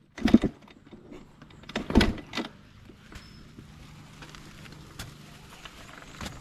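Dirt bike being kick-started without catching: two hard kicks about two seconds apart, each a clunk and a brief turnover of the engine, then a faint steady low hum.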